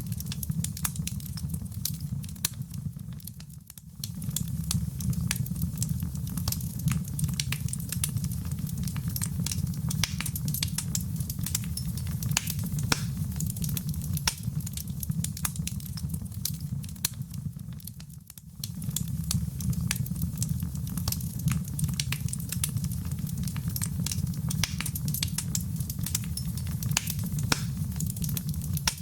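Fireplace fire crackling, with a steady low rumble under frequent sharp pops and snaps. It dips briefly twice.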